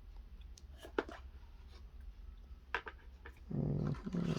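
Light clicks and knocks from the phone's box and its contents being handled, then a brief low hum lasting just under a second near the end.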